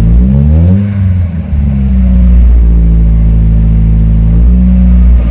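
Nissan 200SX's turbocharged four-cylinder engine revved once, the revs sweeping up and dropping back within the first second or so, then running steadily, with a brief blip near the end. The throttle is blipped to build boost pressure, and the engine is running again after failing to restart hot.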